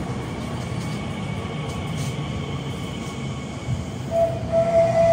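Elizabeth line Class 345 electric train standing at the platform, its onboard equipment giving a steady hum with a faint high whine. Near the end, a single steady tone sounds for a little over a second.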